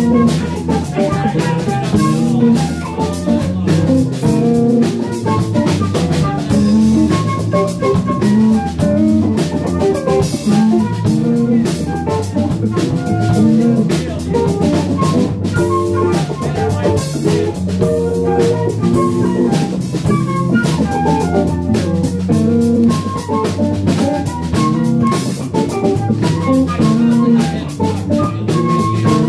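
Live band playing a steady groove: drum kit keeping the beat under Fender electric bass and electric guitar.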